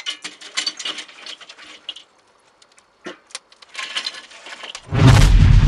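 Burning charcoal crackling and popping as sparks fly, in clusters of sharp clicks with a short lull about two seconds in. Near the end a sudden, much louder deep rumble sets in and stays.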